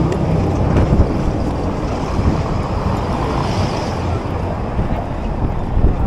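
City street traffic: a steady low rumble of passing vehicles, with wind buffeting the microphone.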